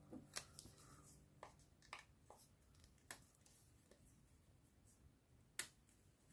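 Faint, scattered clicks and taps of fingers and nails handling paper stickers on a journal page, a handful in all, the sharpest near the end.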